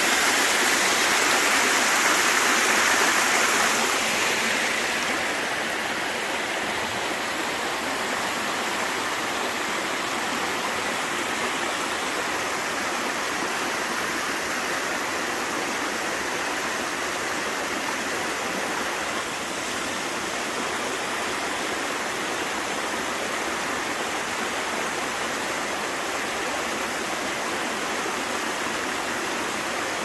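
Small waterfall spilling over stepped rock ledges: a steady rushing of water, a little louder for the first four seconds or so, then even.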